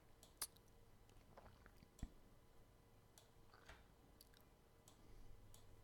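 Near silence: room tone with a faint steady hum and a few scattered faint clicks.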